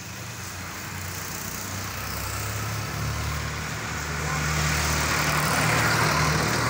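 A motor vehicle's engine passing by, with a steady low hum that grows louder to a peak about five to six seconds in, then starts to fade.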